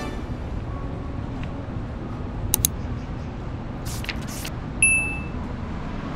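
Light metallic clinks and jangling, like keys being handled, about two and a half and four seconds in, then one short high electronic beep just before five seconds, over a steady low rumble.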